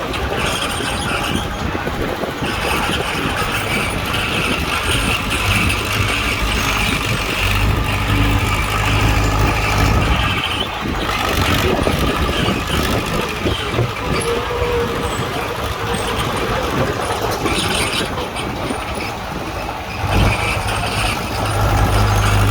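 Bulldozer's diesel engine working under load as it pushes soil, running continuously and rising in level a few times, with the heaviest surges about eight seconds in and again near the end.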